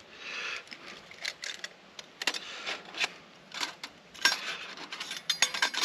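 Metal parts of a flat-pack camping stove being slotted and fitted together: a short scrape near the start, then a series of irregular clicks, clinks and knocks.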